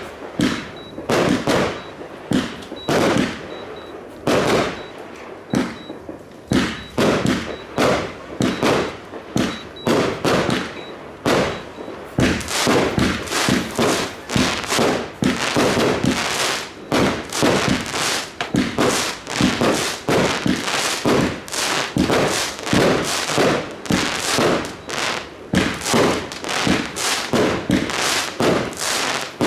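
Firework display: aerial shells and cakes banging in quick succession. About twelve seconds in, the shots close up into a dense, near-continuous barrage with crackle.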